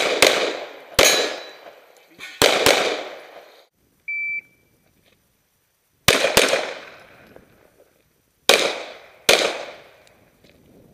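Glock pistol shots, fired singly and now and then in quick pairs, each trailing a long echo. About four seconds in, a short high beep, the start signal of a shot timer, sounds once, and the shooting resumes a little under two seconds later.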